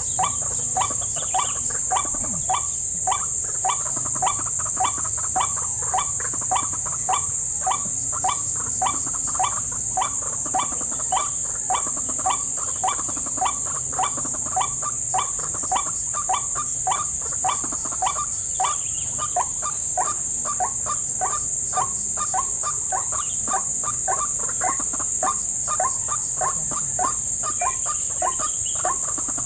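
White-breasted waterhen calls: a short 'ruak' note repeated about twice a second without a break. Under them runs a steady high insect drone of crickets.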